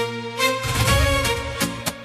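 Instrumental music with no singing: a sharp hit at the start, then a deep swell, then regular percussion strikes over held instrument tones.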